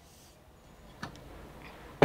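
Quiet room tone with a single light click about a second in and a fainter tick later.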